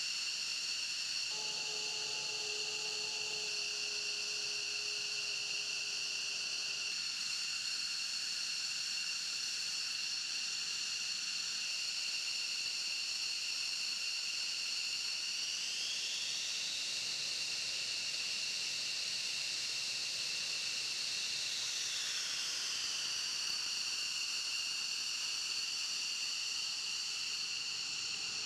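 Steady high-pitched whine of F-15C Eagle jet engines running on the ground, several pure tones over a hiss. About halfway through one part of the whine rises in pitch and swells for several seconds, then settles back.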